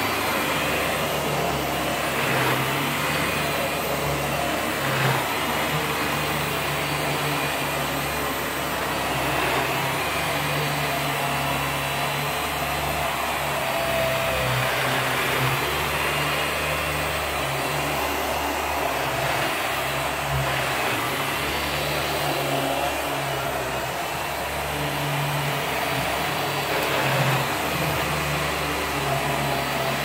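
Bagless upright vacuum cleaner running on carpet: a steady motor and suction noise that never stops, its low hum wavering as the head is pushed along.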